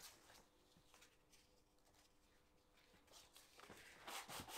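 Mostly near silence with faint handling noises; about four seconds in, fine abrasive paper starts rubbing in quick strokes over a torch-blackened wooden chisel handle.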